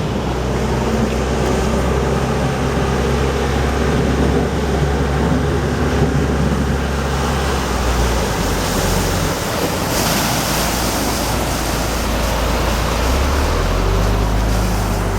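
Floodwater rushing in a swollen river, with a vehicle engine humming steadily underneath; the engine's hum shifts near the end.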